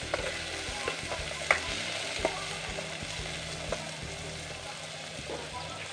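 Chopped onion, garlic, ginger and tomato sizzling as they are sautéed in an aluminium pot, with a spatula scraping and clicking against the pot as it stirs them.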